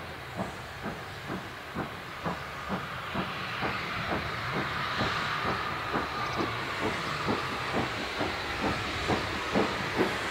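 Steam locomotive working along the line, its exhaust beating steadily about twice a second over a steady hiss of steam. It grows louder as it draws nearer.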